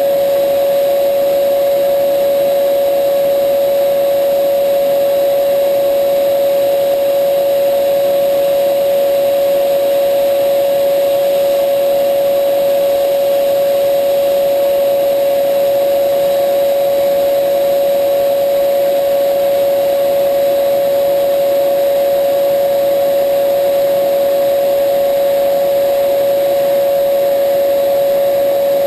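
Bridgeport milling machine running with a steady, unchanging whine.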